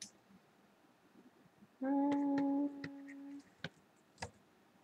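A person hums one steady note for about a second and a half, then it drops softer and stops. A few light clicks sound around it.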